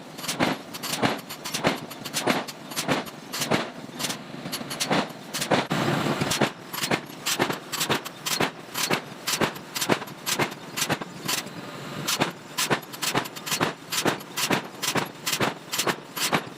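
Metal forging: repeated hammer blows on metal, about three a second and fairly regular, with a brief rushing noise about six seconds in.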